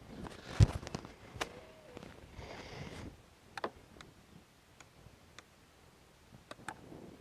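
Scattered plastic clicks, a knock and a brief rustle as the start controls of a Ryobi 40V 21-inch mower are worked. The motor does not start: the mower is on its side and its tip-over safety cutout keeps it off.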